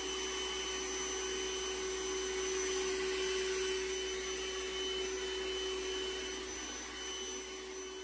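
Trifo Ollie robot vacuum running in cleaning mode: a steady whirring hum from its suction fan, with one constant tone. It grows gradually fainter near the end.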